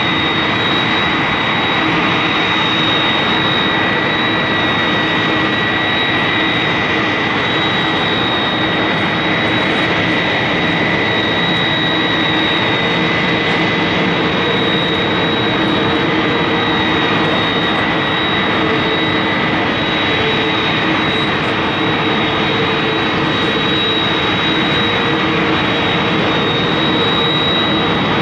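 Airbus A330 airliner's twin jet engines running at taxi power as it taxis: a steady rush of engine noise with a high, steady whine over it.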